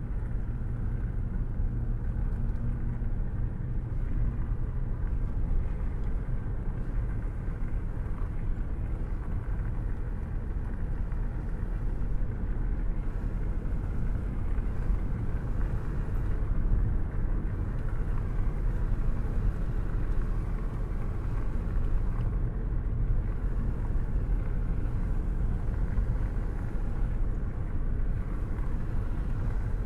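Steady rain during a thunderstorm, a continuous noise heavy in the low end with a deep rumble and no distinct thunderclap.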